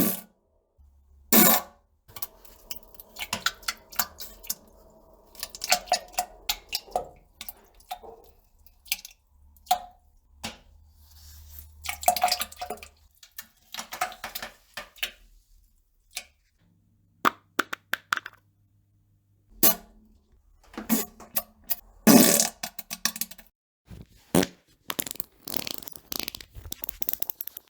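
A long string of fart and poop sound effects: many short, irregular bursts with gaps between them. There are two longer drawn-out ones, the first starting about two seconds in and lasting several seconds, the second a low steady one about seventeen seconds in.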